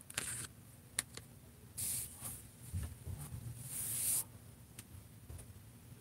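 Handling noises: a few short rustling swishes and two sharp clicks about a second in, as a hand moves among the figures and packaging.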